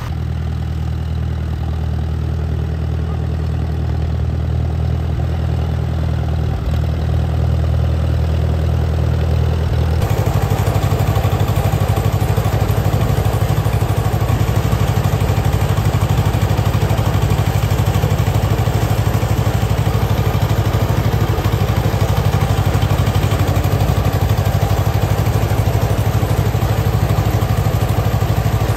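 A John Deere two-cylinder tractor engine running steadily. About ten seconds in, the sound changes abruptly to a louder John Deere engine with a fast, even beat, heard from the driver's seat as the tractor drives along.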